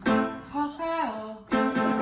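Light background music of plucked string notes, struck about every half second, with a short sliding melody near the middle.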